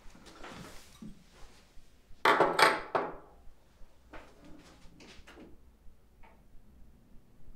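Household handling sounds: a loud scraping rustle lasting just under a second about two seconds in, then a few light knocks and a small click as a record player's tonearm is handled.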